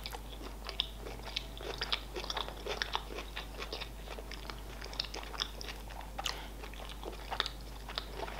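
Close-up chewing of a mouthful of sushi roll: a steady run of small, irregular mouth clicks and smacks.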